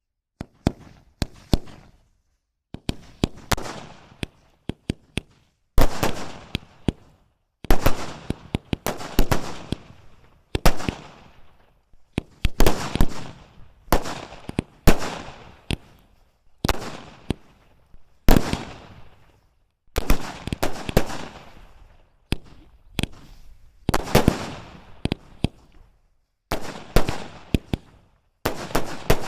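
Colour sky-shot aerial fireworks going off in repeated volleys, each a cluster of sharp bangs that trails off, about one volley every two seconds.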